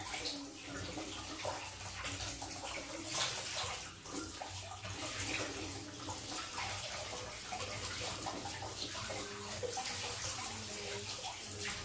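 Kitchen tap water running into a sink while pieces of fish are rinsed by hand, with scattered splashes and knocks.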